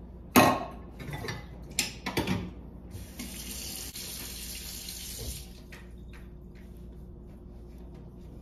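A few sharp knocks and clatters, then a kitchen sink tap runs for about two and a half seconds and is turned off.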